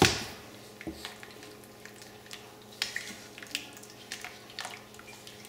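Silicone spatula stirring a thick mushroom cream sauce in a pan, with soft scrapes and light clicks against the pan. A single knock comes right at the start.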